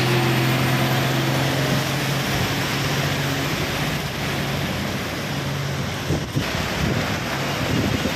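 Heavy truck engines running as lorries roll through floodwater on a highway, with water splashing and sloshing around their wheels. A steady low engine drone is strongest in the first two seconds, and wind buffets the microphone throughout.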